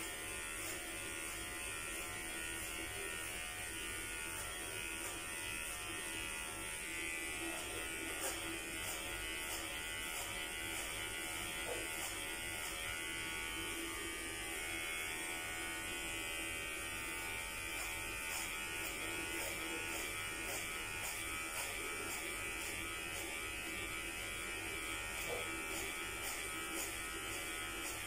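Electric hair clippers buzzing steadily as they are run through hair on the head.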